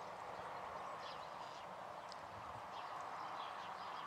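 Quiet outdoor ambience: a steady hiss with scattered short, high bird chirps.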